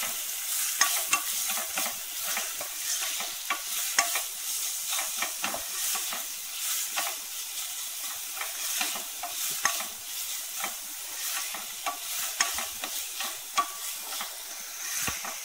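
Chopped onion sautéing in hot oil in a frying pan: a steady sizzle with frequent clicks and scrapes of a spoon stirring it against the pan.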